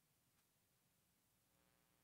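Near silence: the preacher's microphone feed has dropped out, leaving only faint hiss.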